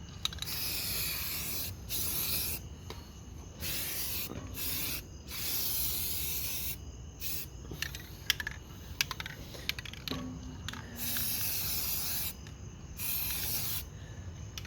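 Aerosol can of spray primer hissing in repeated bursts of a second or two, with short pauses between them, as primer goes onto metal, with a few small clicks.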